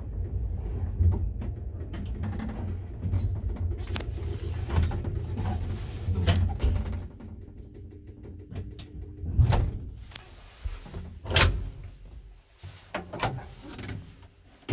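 Old 1960s ZUD passenger lift: a steady low hum of its machinery with light clicks, which stops about seven seconds in. Several sharp metallic knocks and bangs of its doors follow, the loudest near the middle and one near the end.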